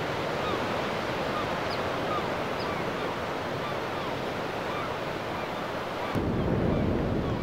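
Small waves washing onto a sandy beach, a steady hiss of surf. About six seconds in it changes abruptly to louder, low gusting wind buffeting the microphone.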